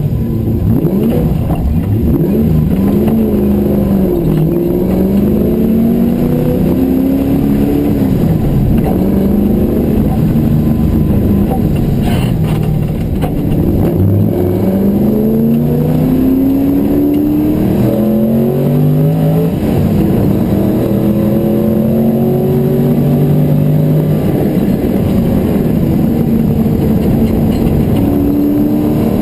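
Porsche 928's V8 engine heard from inside the cabin, accelerating hard. Its pitch climbs and then drops back sharply several times as it changes up through the gears.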